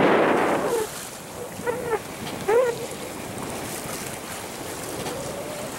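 Wind buffeting the microphone and water washing past the hull of a sailboat under sail; a loud gust dies away just under a second in, and two short squeaks come about two seconds in.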